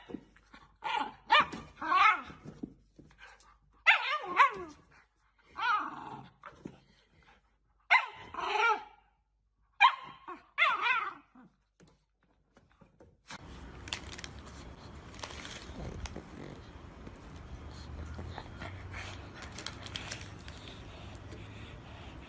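A dog barking and whining in a string of short pitched calls that rise and fall, one or two a second, for about the first twelve seconds. Then the calls stop, and a steady background hiss with faint clicks follows.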